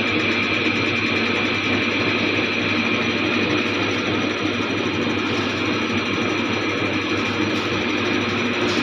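Jeep Compass diesel engine idling steadily, while being checked for the injector (nozzle) noise it developed after petrol got mixed into its diesel.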